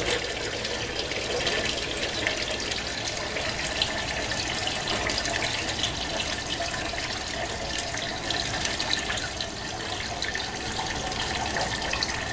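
Dyed liquid draining out of a stopped self-draining centrifuge bowl, a steady run of trickling and splashing liquid.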